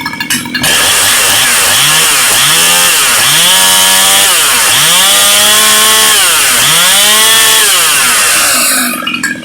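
Ported Jonsered 535 two-stroke chainsaw with an opened-up muffler, run hard with its engine speed rising and falling five or six times, then dropping back near the end.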